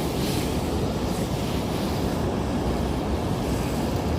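Steady rushing noise, heaviest in the lows: wind buffeting the microphone.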